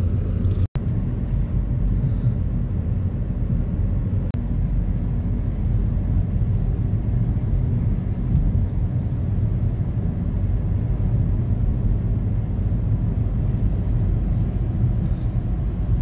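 Steady low rumble of a car on the move, engine and tyre noise heard from inside the cabin. The sound cuts out for an instant less than a second in.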